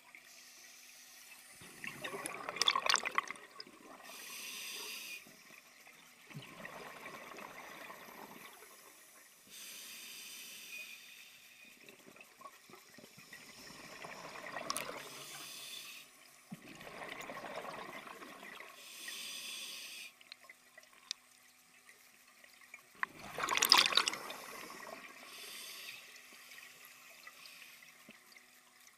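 Scuba diver breathing through a regulator underwater: about five exhalations come as gurgling bursts of bubbles, alternating with the higher hiss of air drawn in on each inhalation. The loudest bubble burst comes a few seconds before the end.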